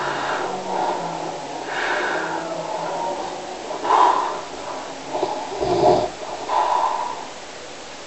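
Snoring: a run of rough snores and breaths, loudest about four seconds in and again just before six seconds.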